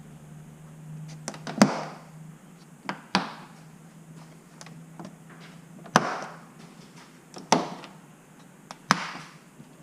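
Push-button plastic retainer clips on a trim panel being pressed and popped loose, with the panel handled: about five sharp plastic clicks and knocks spaced a second or two apart, some followed by a brief rustle.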